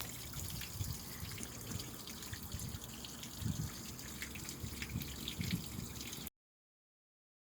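Faint dripping and trickling water with scattered small clicks and a few low knocks; the sound cuts off to dead silence about six seconds in.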